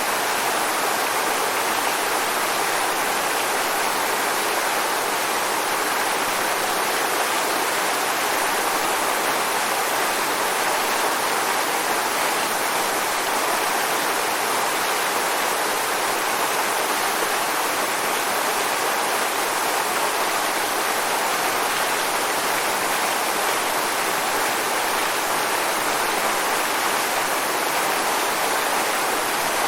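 Waterfall: steady rushing, splashing water with no let-up.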